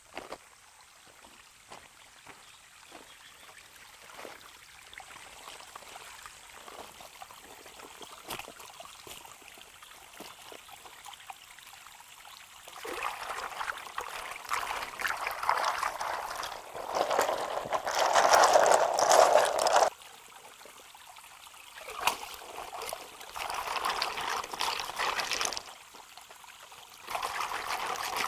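Water pouring and splashing in three bursts as conches are washed by hand, after a stretch of faint small clicks and knocks; the middle of the first burst is the loudest.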